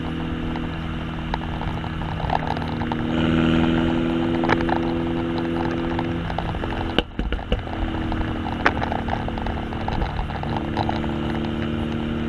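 Exhaust of a 2015 MINI Cooper Hardtop with John Cooper Works exhaust tips, heard right at the tailpipes as the engine runs at a steady idle. It swells slightly about three seconds in, and a brief dip with a few clicks comes about seven seconds in.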